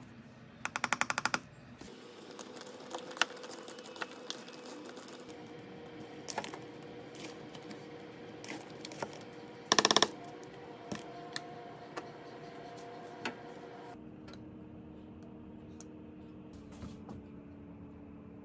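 Spoon stirring cut okra and spices in a plastic tub, with scattered clicks of the spoon against the plastic and two short bursts of rapid rattling clicks, the loudest sounds, about a second in and about ten seconds in. Near the end the clicking stops and a low steady hum remains.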